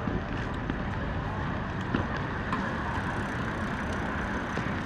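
Steady road traffic noise: vehicles passing along a city street, with a few faint ticks.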